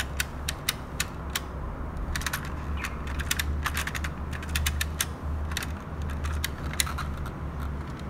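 1985 M.A.S.K. Jackhammer toy vehicle rolled across a tiled floor: a low rolling rumble from its rubber wheels, with rapid irregular plastic clicking from the wheel-driven machine guns in the front grille moving in and out. The rumble stops near the end.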